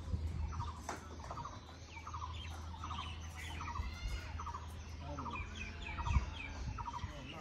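Birds calling: one bird repeats a short call over and over, about every half second, while other chirps rise and fall above it. Under them runs a steady low rumble, with a single thump about six seconds in.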